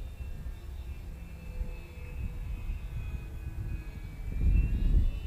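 The twin electric motors and propellers of a small foam RC glider whining faintly overhead, with a slight wavering in pitch, over a low rumble that grows louder near the end.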